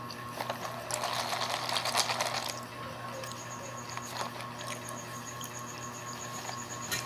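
Crinkly plastic rustling for about a second and a half, about a second in, as a plastic milk tea cup is handled. From about three seconds a cricket chirps in a fast, even series of high pulses.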